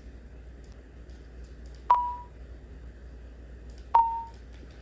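Analog drum-kit tom sample, pitched up in FL Studio, played twice about two seconds apart: each a sharp click and a brief high ping that fades quickly. The tom is being pitch-shifted to imitate a submarine sonar ping.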